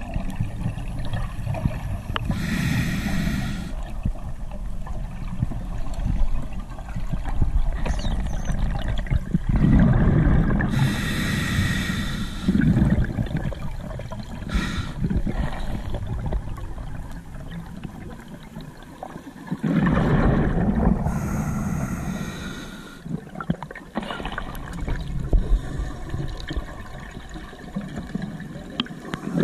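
Underwater noise with a scuba diver's regulator breathing: a bubbling, hissing burst every several seconds over a steady low rumble of water.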